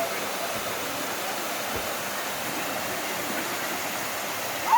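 Waterfall rushing in a steady, even roar of falling water. Near the end there is a short, loud, high-pitched sound.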